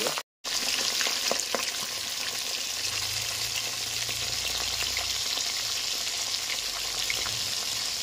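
Mangur catfish frying in hot oil in an iron kadhai: a steady sizzling hiss with scattered pops. The sound drops out completely for a moment just after the start.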